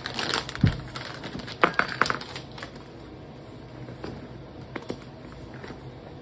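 Plastic packaging crinkling and rustling as it is handled, with a few sharp knocks during the first two seconds, then only light, scattered rustles.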